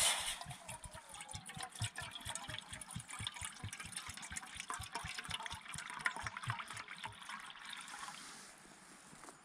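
Water poured from a Stanley vacuum bottle into a Trangia cook pot. It splashes and glugs about four times a second as air gurgles back into the bottle, starts abruptly, and tapers off near the end.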